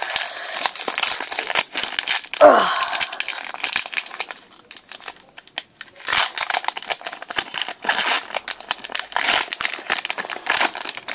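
Foil wrapper of a Pokémon trading card booster pack crinkling and crackling as it is torn and peeled open by hand, in two spells with a quieter pause about four seconds in.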